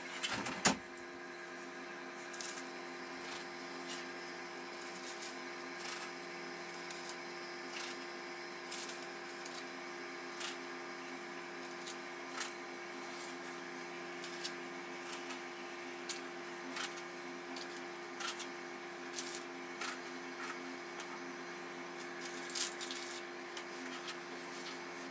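Scattered soft taps and knocks of a cookie cutter and hands working gingerbread dough on a worktop, with a sharper knock less than a second in. A steady hum of several fixed tones runs underneath.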